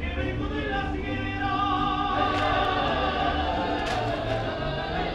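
Live mariachi band playing: voices singing together over strummed accompaniment and a line of deep stepped bass notes.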